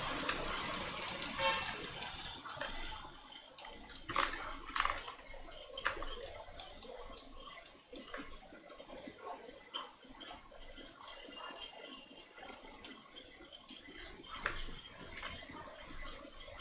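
Irregular short clicks of a computer mouse and keyboard as the user works, over faint background hiss.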